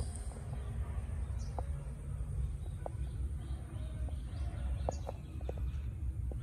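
Garden ambience: a low rumble on the microphone, with short bird chirps now and then and a faint thin high whine.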